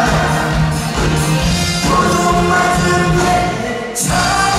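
A male singer singing a Korean song into a handheld microphone over full band accompaniment. The music breaks off briefly just before four seconds in and then comes back in.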